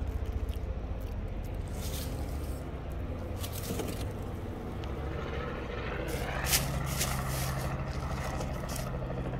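A steady low engine hum, with a few short scrapes and clicks over it, the sharpest about two-thirds of the way in.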